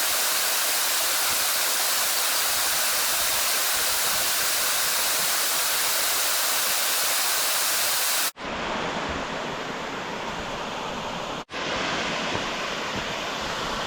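Loud, steady rush of falling water, a waterfall or fast mountain creek. It cuts abruptly to a somewhat quieter rush about eight seconds in and breaks briefly again near the end, as if several clips were joined.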